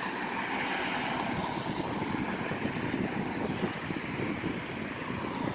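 Road traffic noise: a steady rush of tyres and engines from cars on the road.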